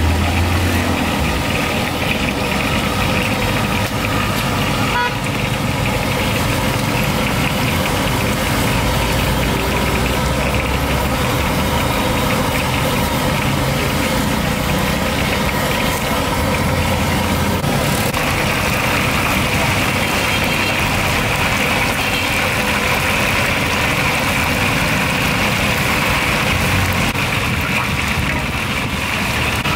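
Steady street traffic: motorbike and car engines running and idling, with no voices.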